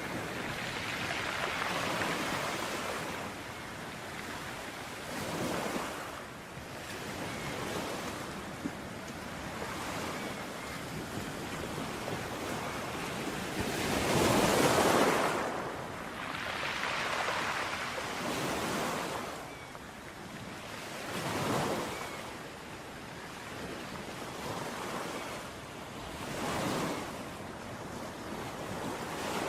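Ocean waves breaking on a shore, the surf swelling and falling back in a steady wash every few seconds, with one bigger wave about halfway through.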